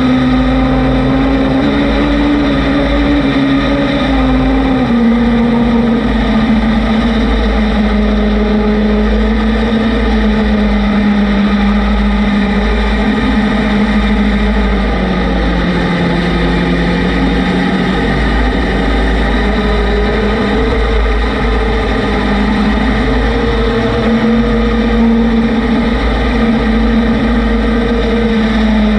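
Vehicle engine running steadily, its pitch rising and falling slowly with engine speed, under a constant low rumble of wind on the microphone.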